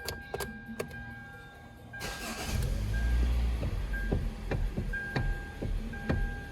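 Car engine starting about two seconds in and settling to idle, with sharp clicks or knocks repeating about every half second in the steering column of a 2013 Hyundai Elantra. The noise is blamed on a plastic part inside the steering column.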